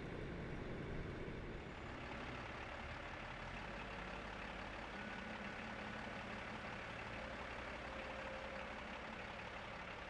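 Heavy military truck engine running steadily. The deep rumble eases about two seconds in, and a steady hiss of running noise continues.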